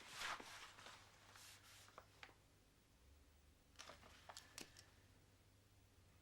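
Near silence with a few faint rustles and light clicks.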